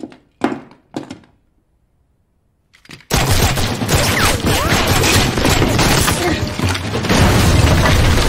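Movie gunfight sound: a couple of short soft sounds, a pause, then about three seconds in a sudden loud, dense run of gunfire and crashing that keeps going.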